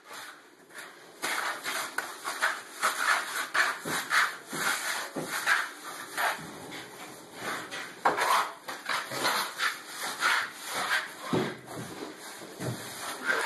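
Irregular scraping strokes of tools working wet cement, about two or three a second.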